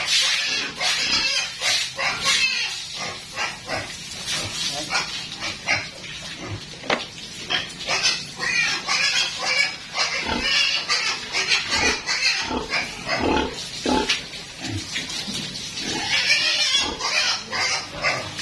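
Pigs squealing and grunting: many short, high-pitched calls overlapping one another with no break.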